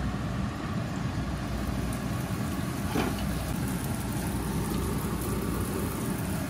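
A puri deep-frying in hot ghee, a steady sizzling and bubbling as it puffs up in the pan, over a low steady hum. A brief tap about three seconds in.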